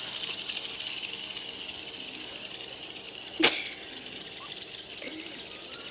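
Hexbug robotic toy buzzing as its vibration motor skitters it along, a steady rattly whir, with one sharp click about three and a half seconds in.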